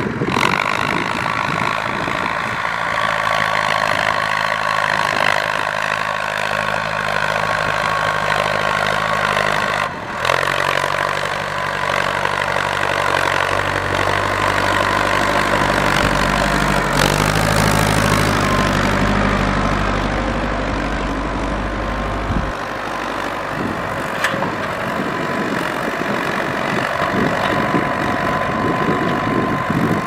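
Ford 6600 tractor's three-cylinder diesel engine running steadily under load as it pulls a disc plough through the soil, with a short dip in level about ten seconds in.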